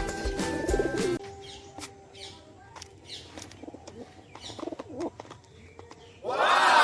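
Pigeons cooing softly after background music cuts off about a second in. Near the end a loud sound starts that rises and falls in pitch.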